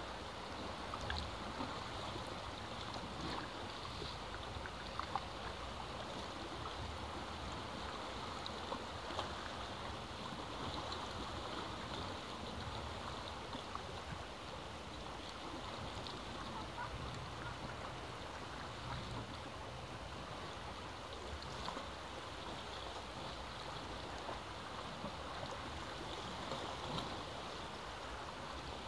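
Sea water washing and trickling over rocks at the foot of a cliff: a steady rush with small scattered splashes.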